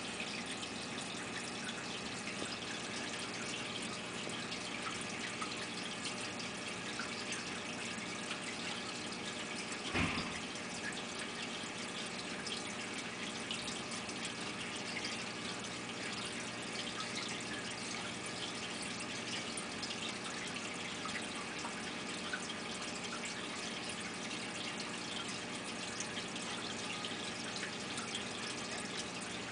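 Steady trickling, running-water hiss with faint scattered drips, and a single knock about ten seconds in.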